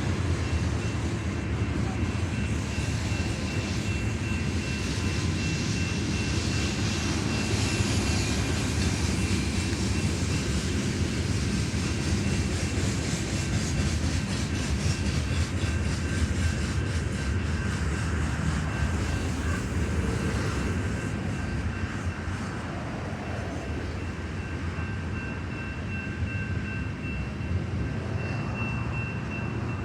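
Coal train rolling past: a steady heavy rumble of the railcars on the track, with a thin high steady tone above it. It eases off a little about two-thirds of the way through.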